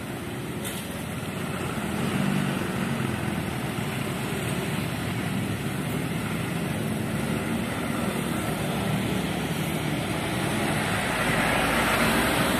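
Steady traffic and engine noise, growing louder near the end as a truck passes close by.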